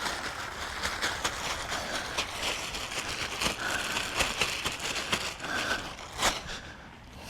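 Irregular crackling and rustling with many small clicks and knocks, and a sharper knock about six seconds in.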